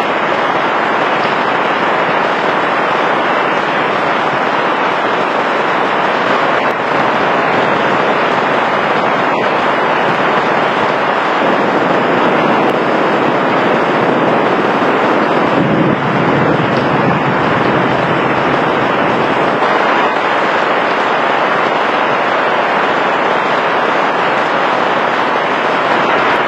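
Heavy rain pouring steadily and loudly, with a low rumble of thunder swelling up about halfway through and dying away.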